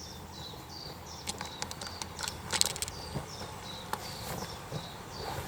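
Land Rover 300Tdi diesel engine idling steadily with an irregular knocking/ticking on top, loudest about two and a half seconds in. It is a knock that persists although the valve clearances have been checked twice and the vacuum pump swapped; the head was skimmed beyond the allowed limit and fitted with the thickest head gasket available.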